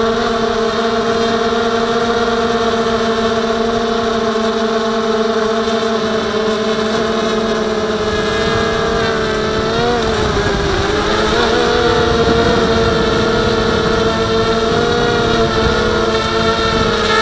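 Blade 200QX quadcopter's electric motors and propellers whining steadily in flight, heard from the camera on the airframe with wind rush underneath. About ten seconds in the pitch wavers and the tones split apart as the motors change speed, then it settles back to a steady whine.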